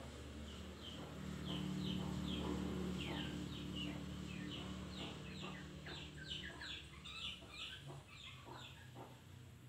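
Long-tailed shrike (cendet) chattering: a rapid run of short, sharp, high chirps, several a second, used as a bait call to set other cendet singing. A low steady drone sounds underneath and fades after the middle.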